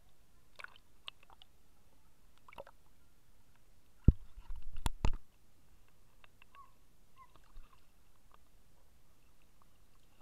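Water sloshing and knocking against a submerged action camera's waterproof case: a few faint clicks, then a loud cluster of muffled thumps about four seconds in that lasts about a second.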